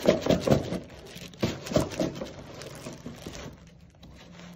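Plastic parcel wrapping and packing tape crinkling and tearing as they are pulled off a cardboard box by hand: a quick, irregular run of rustles and rips that dies down about three and a half seconds in.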